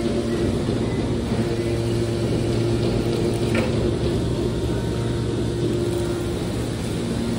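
Hydraulic scrap metal baler running, a steady even hum from its electric motor and hydraulic pump.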